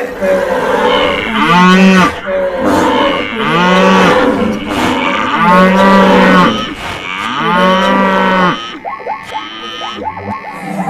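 Cattle mooing: about four long, loud moos roughly two seconds apart, with other animal calls behind them, followed by shorter, quicker calls near the end.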